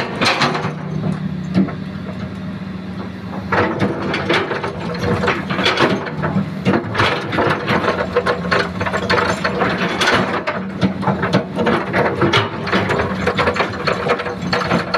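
Hitachi excavator's diesel engine running steadily, with a dense, irregular clattering that sets in about three and a half seconds in and goes on throughout.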